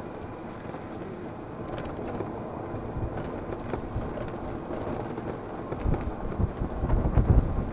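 Yamaha golf cart driving along a wet paved cart path: steady running and tyre rumble, with louder low rumbles near the end.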